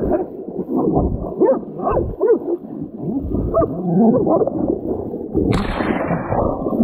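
A wild hog held by catch dogs grunting and squealing, mixed with the dogs' growling: many short rising and falling cries, muffled. A loud rush of noise joins about five and a half seconds in.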